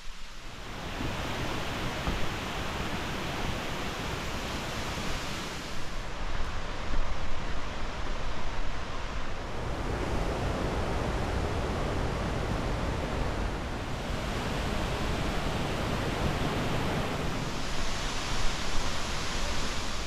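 A steady rushing noise that swells a little louder about seven seconds in and again near the end.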